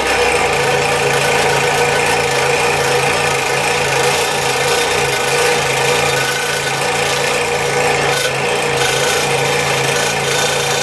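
Scroll saw running, its blade cutting slowly through a thick poplar spoon blank stood on end (resawing it down the middle), a steady rasping sawing sound.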